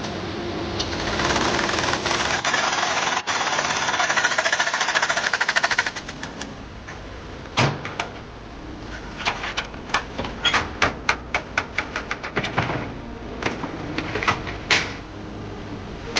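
Tire-repair tool work: a rapid buzzing rattle for about five seconds, then a run of sharp clicks and knocks.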